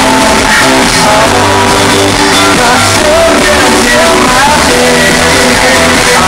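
A live rock band playing loudly, with electric guitars, keyboards and drums under a man's lead vocal.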